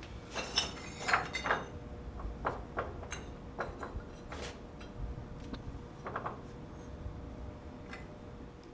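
Small hard pieces being handled and set down: a quick run of clicks and clatters in the first second and a half, then scattered lighter knocks, over a faint steady hum.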